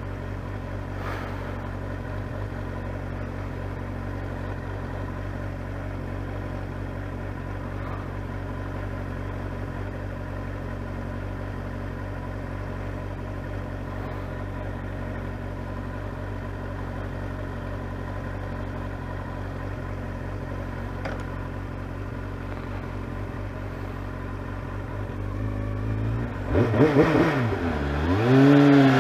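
Motorcycle engine idling steadily, then near the end revving up, dropping back and revving up again as the bike pulls away.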